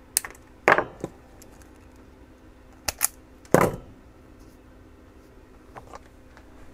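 Small side cutters snipping wire: two quick clusters of sharp clicks and snaps about three seconds apart, with a few faint clicks later on.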